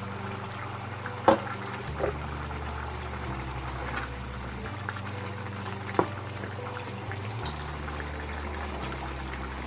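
A pan of broth with rice and vegetables simmering, while a wooden spoon stirs it and knocks against the pan a few times. Low background tones change pitch every second or two.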